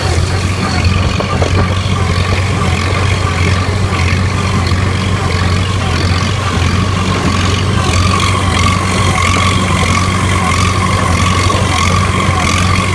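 Minneapolis-Moline M670 Super tractor engine running steadily under load while driving a small square baler, with a steady whine over the engine. A regular knocking of the baler's plunger becomes clearer in the second half.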